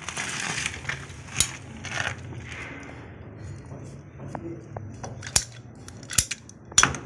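Scissor-type PP-R pipe cutter closing on a white PP-R plastic water pipe: a short rasp at the start, then several sharp clicks as the cutter is worked on the pipe.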